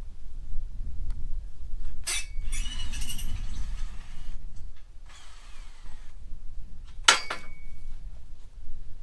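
Metal parts clinking during disassembly of a scrap metal rabbit cage table: two sharp metallic strikes that ring briefly, about two and seven seconds in, with rattling and clattering of metal between them, over a steady low rumble.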